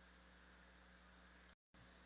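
Near silence: faint steady hiss and low hum of the recording's noise floor, with a brief dead-silent gap about three-quarters of the way through.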